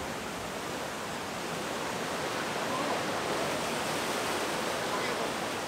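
Steady noise of sea surf washing over the rocks of the shore.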